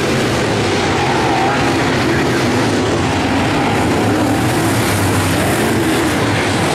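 Dirt late model race cars' V8 engines running at racing speed in a pack: a loud, steady drone whose pitch wavers up and down as the cars power through the turns.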